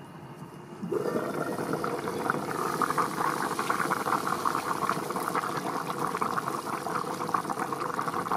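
Vegetable soup boiling furiously in an open cast-iron pot: as the lid comes off about a second in, a loud, steady bubbling starts and continues.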